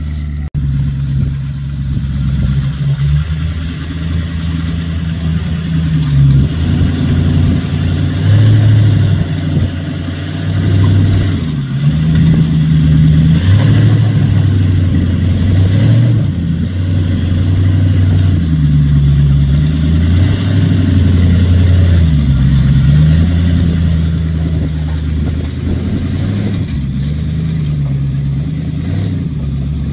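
Tube-chassis rock buggy's engine revving up and down over and over as the driver works the throttle to crawl over rock ledges.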